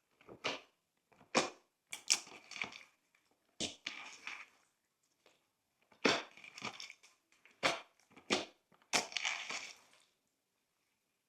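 Glossy slime being pressed and folded, giving a string of sharp crackles and bubble pops, each trailing off quickly, at irregular intervals of about half a second to a second and a half.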